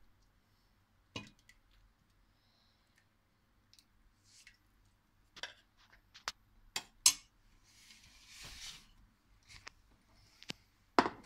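Metal ladle clinking against a stainless steel pot and a porcelain soup plate as bean soup is served out: a scattering of sharp clinks, loudest about seven and eleven seconds in, with a soft splashing hiss of soup around eight seconds.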